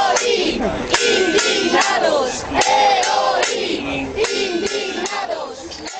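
A crowd of protesters chanting slogans in unison, many voices shouting together in repeated phrases, dying away near the end.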